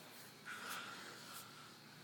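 A faint snore from a sleeping woman: one breath with a thin whistle, lasting about a second and starting about half a second in, over quiet room tone.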